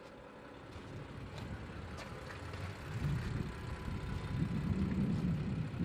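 BMW M4's 3.0-litre twin-turbo straight-six idling, growing louder about three seconds in, with a few light clicks.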